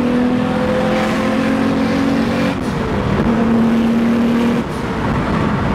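Turbocharged 3.2-litre V6 of a 1997 Acura NSX running under load, heard from inside the cabin. Its note holds nearly steady, with two short breaks about two and a half and four and a half seconds in where the pitch drops.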